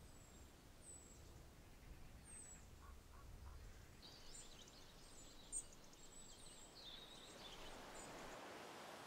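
Near silence: faint outdoor background with a few faint, high bird chirps.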